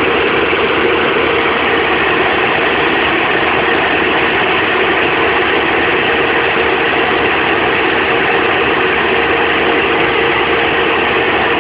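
An engine running steadily at a constant speed, without revving or stopping.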